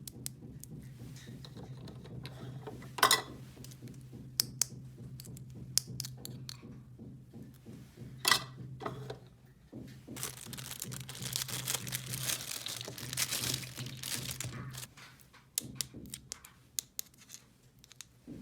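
Handling noises: sharp clicks and taps, with a stretch of crinkling rustle in the middle, over a low steady hum.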